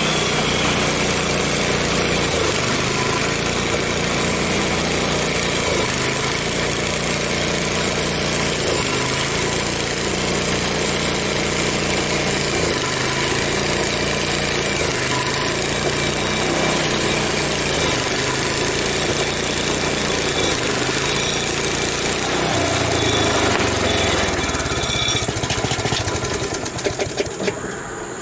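Gasoline engine of a Frontier OS23 portable bandsaw sawmill running under load in a cut, its pitch sagging and recovering every few seconds: the engine is losing power, which the owner suspects is down to old gas. Near the end there are a few sharp knocks and the sound dies away.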